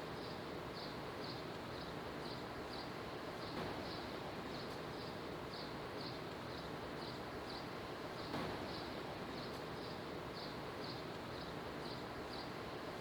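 Chirping insect: a short high chirp repeating about twice a second over a steady background hiss.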